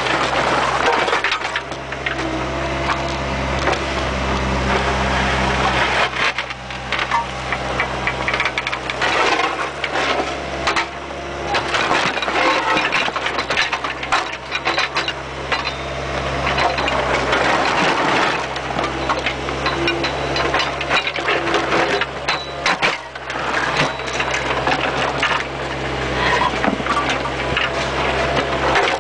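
Bobcat 430 mini excavator working, heard close up from its bucket: the diesel engine runs steadily underneath while the bucket scrapes and knocks against soil and debris, with many irregular sharp clicks.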